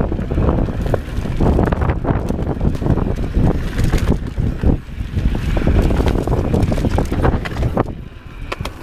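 Mountain bike descending a dirt singletrack at speed: wind buffeting the camera microphone over tyres rolling on the dirt, with frequent short rattles and clicks from the bike. It quiets briefly near the end.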